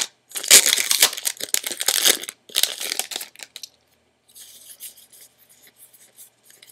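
Foil booster-pack wrapper being torn open and crinkled, loud crackling for about three seconds in two spells. Then come quieter scattered rustles and ticks as the cards inside are handled.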